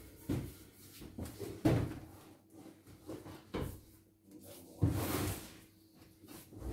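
Cardboard boxes being handled and moved: a series of knocks and bumps, with a longer scraping rustle about five seconds in.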